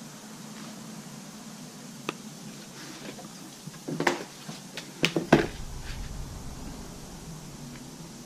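A sheet of poster board being shifted across a workbench and a long metal straightedge being handled and laid down on it: a single click about two seconds in, then several knocks and scrapes around the middle, the loudest about five seconds in, over faint workshop room tone.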